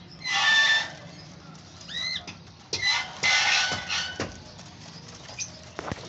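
A cage full of albino lovebirds calling. There are two loud bursts of shrill screeching chatter, about half a second in and again around three seconds, with short arching chirps between them and a few sharp clicks.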